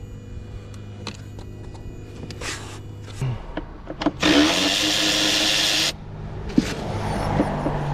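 A power tool runs in one loud burst of nearly two seconds about four seconds in, starting and stopping abruptly, while a part is being removed from the car. Before it a steady low hum and scattered clicks and knocks of hands working on parts; after it a softer hum with a few knocks.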